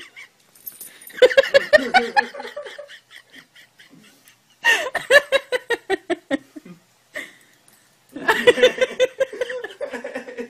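A person laughing hard in three long bursts of rapid, pulsing laughter with short pauses between them.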